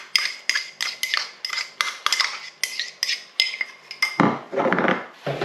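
A metal spoon knocking against a bowl of cake batter ingredients, about two or three ringing clinks a second. About four seconds in, this gives way to a longer scraping stir.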